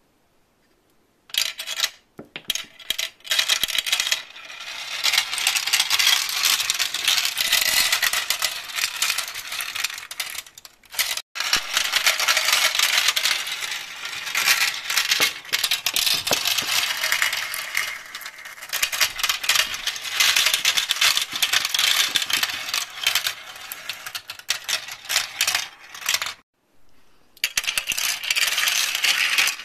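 Many glass marbles rolling and clattering through a plastic marble run's tracks, funnels and tubes, a dense rattle of clicks. It starts about a second in, breaks off briefly near the end, then starts again.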